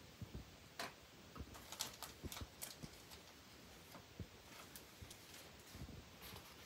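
Faint scattered taps and short paper rustles of hands handling a paper print and a sheet of stiff card on a desk.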